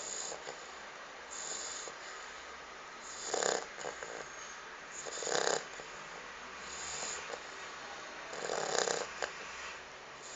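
A Shar-pei dog snoring in its sleep, with a pig-like snore on each breath about every two seconds, three of them clearly louder than the rest.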